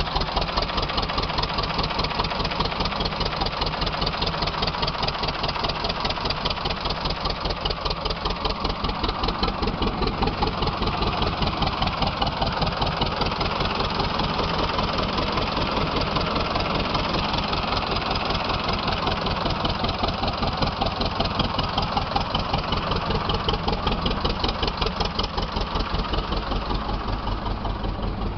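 Władimirec T-25 tractor's two-cylinder air-cooled diesel idling, with a steady, even beat that does not change.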